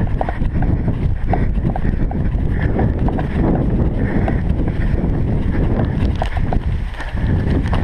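Wind rumbling on a body-worn action camera's microphone while running, with regular footfalls on grass and the crinkle of a plastic map bag swinging in the hand.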